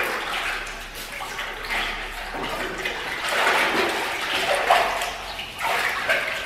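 Water running and splashing, rising and falling unevenly.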